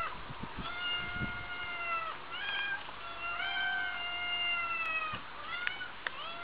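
A domestic cat meowing repeatedly: long, drawn-out, level-pitched meows of over a second each, dropping slightly at the end, with shorter meows between them. A few low dull knocks sound in the first second or so.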